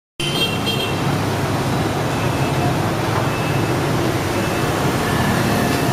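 Steady din of motor traffic, with a few brief high-pitched tones in the first second.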